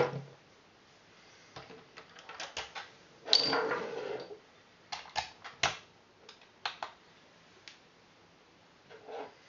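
Parts of a GHK AK gas blowback airsoft rifle being handled: a series of sharp metallic clicks, with a longer sliding scrape of about a second a little over three seconds in.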